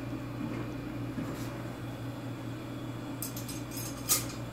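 Metal tongs setting a boiled piece of beef down on a plate: a few light clicks, then one sharp clink near the end, over a steady low hum.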